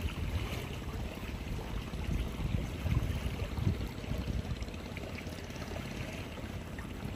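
Wet squelching of mashed red tilapia gut bait being kneaded by hand in a plastic bag, over a steady low rumble. The handling grows louder for about a second around the middle.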